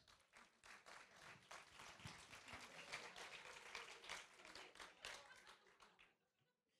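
Audience applauding faintly, many hands clapping in a scattered patter that dies away about six seconds in.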